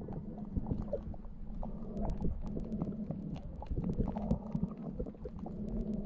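Muffled underwater sound picked up by a GoPro camera in its waterproof housing: a steady low rumble of moving water. Many sharp clicks, scattered at first and much more frequent from about two seconds in.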